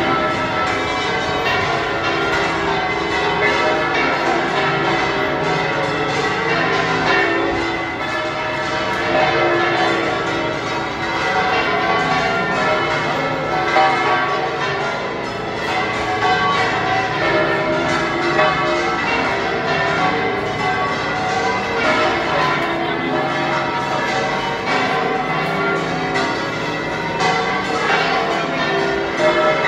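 The bells of La Giralda, Seville Cathedral's bell tower, pealing loudly: many bells struck in quick, overlapping succession, ringing continuously.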